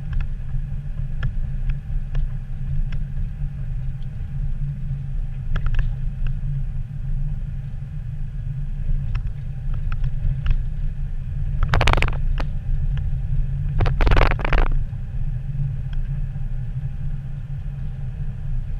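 A car driving slowly on a paved road, heard from inside the cabin: a steady low rumble of engine and tyres, with scattered faint clicks and two brief louder noises about twelve and fourteen seconds in.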